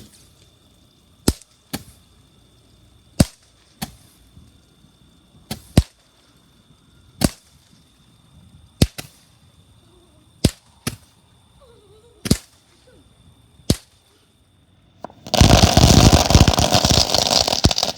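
A series of sharp single cracks, one every second or two, then a loud, dense burst of noise lasting about three seconds near the end.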